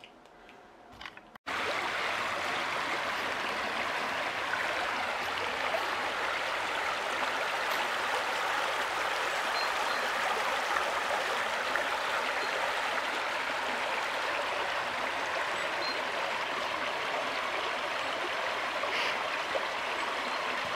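Small shallow brook running over stones, a steady rippling flow of water. It starts abruptly about a second and a half in, after a brief quiet room.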